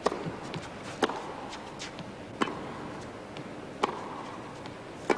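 Tennis rally: a racket strikes the ball five times, about once every second and a half, as the two players trade groundstrokes, with fainter ticks between the hits.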